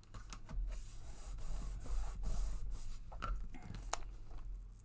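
Paper being handled and rubbed against a table surface, with scraping and a few sharp ticks.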